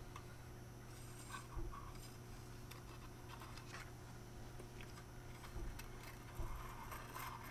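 Faint, scattered scrapes and small knocks of a borescope cable being fed by hand down a .22 rifle barrel.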